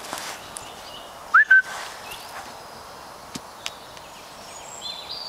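A person whistling a short, loud two-note call to the dog about a second and a half in, the first note rising and the second held level, with small birds chirping in the woods near the end and a couple of faint clicks.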